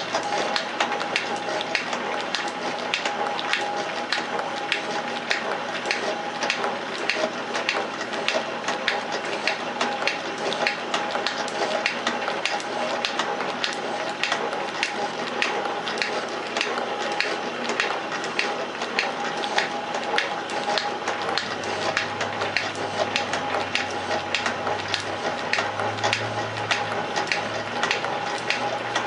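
Metal shaper running, its ram stroking back and forth in a regular rhythm with a click on each stroke over a steady whine, as it takes a fine facing cut across a hard cast steam engine cylinder's port face.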